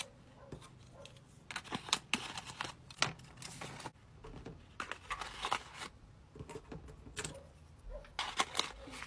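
Small paper bag rustling and tiny plastic toy pieces clicking and tapping as they are handled and packed into it, in short scattered bursts.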